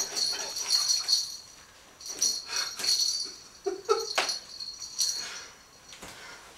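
Small bell on a string cat toy jingling in shaken bursts as a cat bats and bites at it, with a short voice-like sound about four seconds in.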